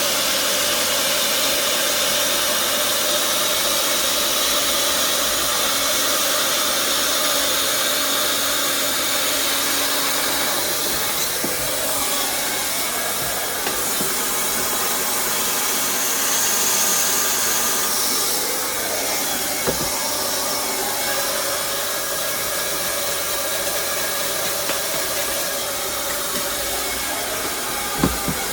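Hot-air plastic welder blowing steadily, a continuous hiss with a faint motor hum, as the corner seams of a plastic frame are welded.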